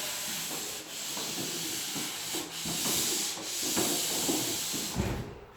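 Hand sanding of dried drywall joint compound along an inside corner, sandpaper scraping in repeated back-and-forth strokes about once a second, stopping shortly before the end.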